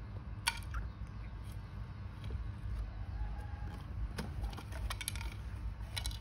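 Scattered sharp clicks and rattles of plastic toys and a plastic crate handled by baby macaques, over a low steady hum.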